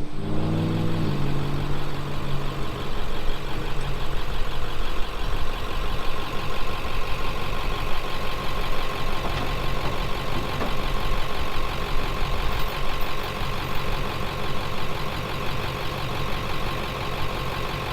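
A vehicle engine settling from higher revs to idle about a second in, then idling steadily, with a thin steady whine above it.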